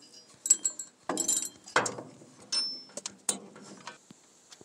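Metal clinking and clicking of tools and parts as the front-mount distributor is refitted on a 1948 Ford 8N tractor's engine. A string of sharp, irregular clinks, thinning out and going faint near the end.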